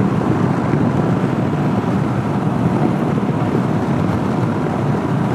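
Honda CB500X motorcycle on the move: a steady rush of wind and road noise with the engine running underneath.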